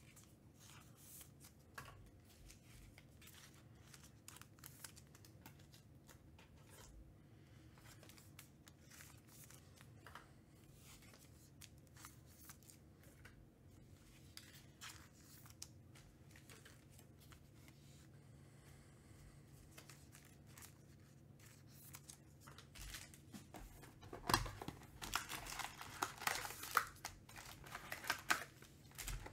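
Faint scattered handling ticks and rustles. About 24 seconds in, louder crinkling starts as foil trading-card packs are pulled out of an opened cardboard hobby box.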